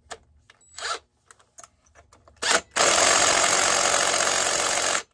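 A cordless drill spins over the two-stroke engine of a ported Holzfforma 372xp chainsaw through the flywheel nut. After two short blips of the drill comes a loud, steady run of about two seconds that stops abruptly.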